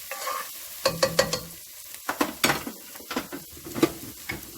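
A spoon clinking against a cooking pot, several sharp clinks, during stirring, over the sizzle of onion, garlic and seafood frying in oil.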